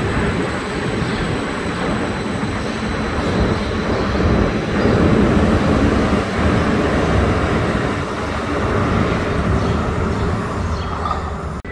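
Calgary CTrain light-rail train pulling out of the station close by: a steady rumble of wheels and motors, with a thin high whine that fades out.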